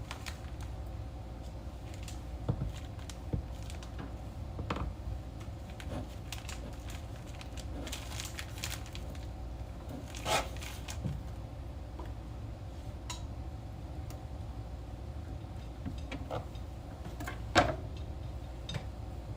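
Scattered kitchen handling noises: light knocks and clicks of utensils and cookware, two of them louder, about ten seconds in and near the end. A steady low hum runs underneath.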